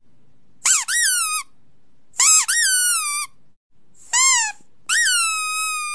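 A dog's squeaky toy sounding four times in a row. Each squeak jumps up in pitch and then slides down, and the last one is drawn out into a longer steady squeal.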